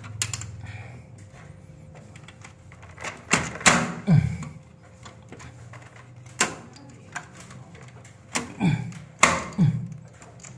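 Sharp clicks and knocks of parts being pressed and snapped into a Schneider consumer unit, coming in bunches, with the loudest near the middle and again near the end.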